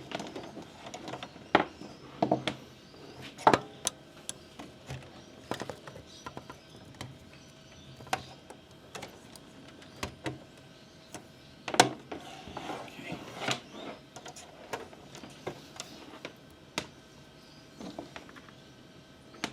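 Irregular clicks, taps and knocks of wires and connectors being handled and plugged in, a few sharper than the rest. Underneath, a faint steady hum from the running computer's CPU fan close to the microphone.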